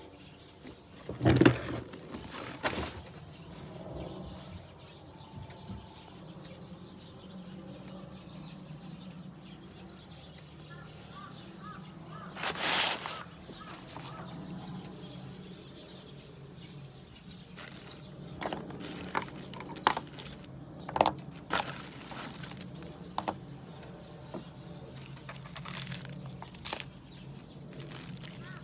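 Small metal hardware (spare caster wheels, steel pins, a drill bit) clinking and clicking as it is handled on wooden boards, in scattered strikes: a loud pair about a second in and a cluster of sharper clicks in the last third. A steady low hum lies under it.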